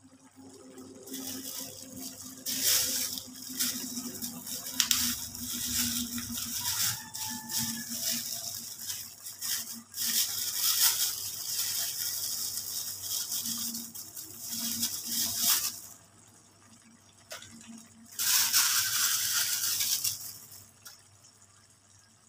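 Water running from a tap with some light knocks. It runs for about fifteen seconds, stops, and runs again for a couple of seconds near the end.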